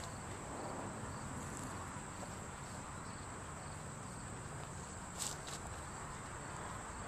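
Outdoor ambience of a steady, high insect trill over faint background noise, with two brief clicks about five seconds in.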